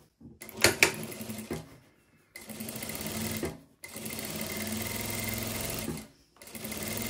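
Industrial straight-stitch sewing machine stitching fabric, running in three short spells of one to two seconds with brief stops between. A couple of light clicks from handling come first.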